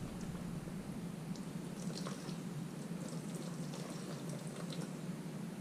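Faint trickle and drips of gasoline running through a motorcycle's fuel hose and inline filter, with scattered small ticks over a steady low hum. The fuel is starting to flow to the carburetor after none was reaching it.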